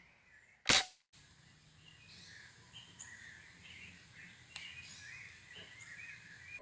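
One sharp shot from a Crosman 760 Pumpmaster pump-up pellet rifle about a second in, followed by birds chirping and trilling.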